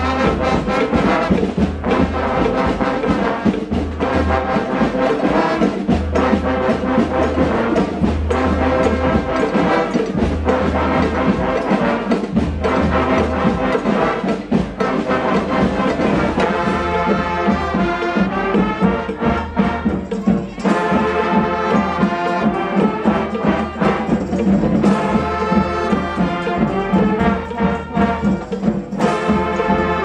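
Brass street band playing: horns carrying the tune over a repeating low bass line and drum beats, with longer held horn notes in the second half.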